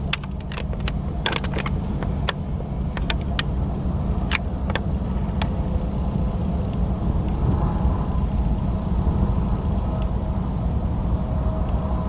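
Freight train rolling by: a steady low rumble with scattered sharp clicks and knocks over the first few seconds.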